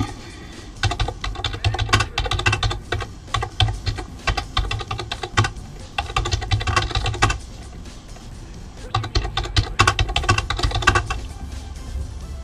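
Computer keyboard typing in three quick bursts with short pauses between, over quieter background music.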